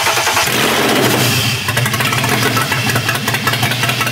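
BMW E36 M3 straight-six engine running steadily, just started, with its oil milky from coolant contamination and being flushed by short runs.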